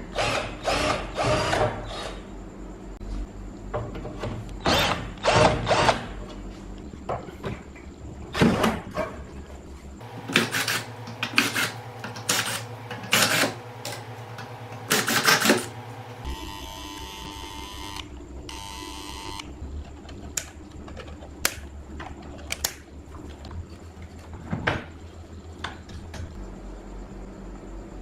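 Short, irregular bursts of a small power tool, with a steadier whine from about 16 to 19 seconds in, over a constant low electrical hum.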